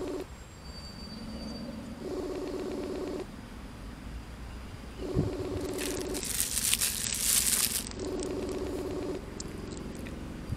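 Phone ringback tone of an unanswered outgoing call through a phone's speaker: a low ring about a second long, repeating about every three seconds. Between about 6 and 8 seconds a plastic bag crinkles loudly.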